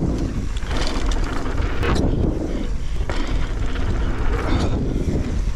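Wind buffeting the camera microphone over the rolling sound of mountain bike tyres on dirt, during a run through dirt jumps. The noise swells and fades about once a second.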